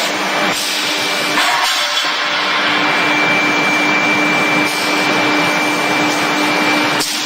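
Steady factory machinery noise: a continuous loud hiss with a faint steady hum and whine underneath, and no distinct press strikes.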